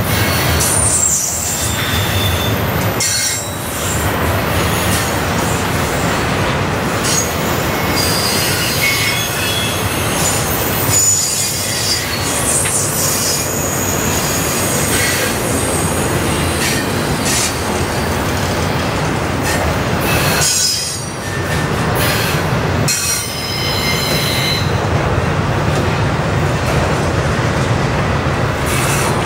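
Double-stack intermodal container train rolling past: a steady loud noise of steel wheels on rail, with high-pitched wheel squeal that comes and goes. The noise dips briefly a few times.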